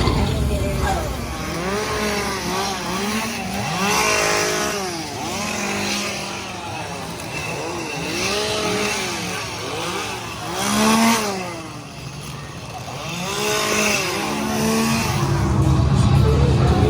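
Chainsaw engine revved up and let fall again over and over, each rev rising and dropping in pitch in about a second, the strongest rev near the middle.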